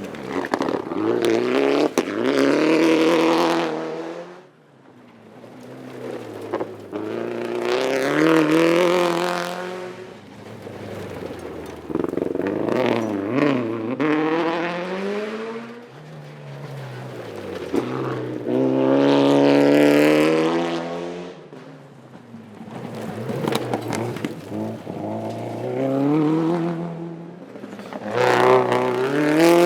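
Rally cars at full throttle on a stage: engines rev up and drop back in steps as they shift gears. The sound comes in about six separate loud passes a few seconds apart, with quieter gaps between them.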